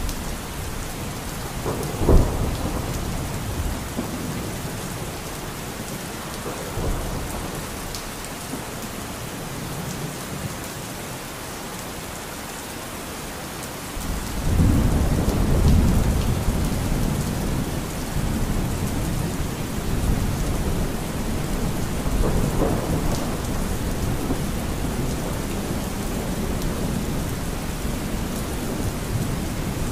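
Steady rain with rolling thunder; the loudest rumble builds about halfway through.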